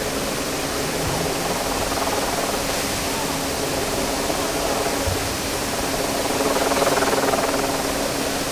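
Plaza fountain's ring of vertical water jets splashing down into its basin: a steady rush of falling water that swells briefly about seven seconds in.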